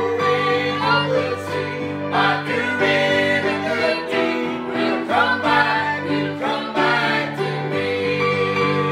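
A gospel song sung by a small group of men's and women's voices together, accompanied by a grand piano.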